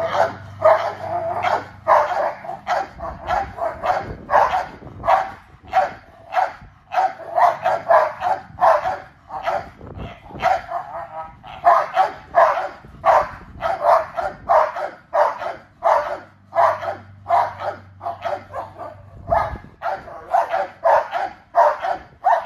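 XL pit bull barking rapidly and without let-up, about two barks a second.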